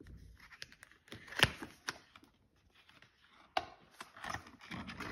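A paper card rustling and crinkling as it is handled, with a few sharp clicks and taps, the loudest about one and a half seconds in.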